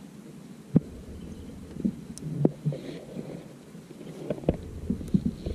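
Scattered knocks and clicks of fishing gear being handled in a kayak, with one sharp knock just under a second in. A low rumble comes in near the end.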